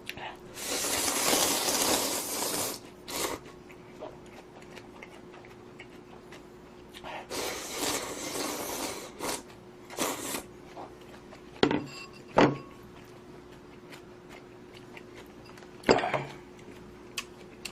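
Eating instant budae-jjigae ramen: two long slurps of noodles and broth, with shorter slurps and a few sharp clicks of utensils against the bowl. A faint steady hum runs underneath.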